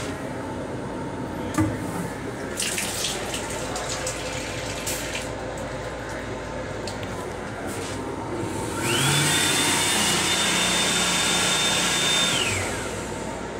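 Automatic faucet in an M7 railcar restroom sink running, followed by the built-in hand dryer's blower spinning up with a rising whine, blowing steadily for about four seconds, then winding down. A steady low rumble of the moving train sits underneath.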